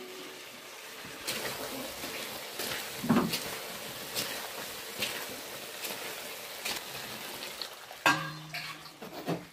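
Chicken pieces sizzling in hot masala in a kadhai, with a metal spoon scraping and clinking against the pan as they are stirred. A louder clatter comes about eight seconds in.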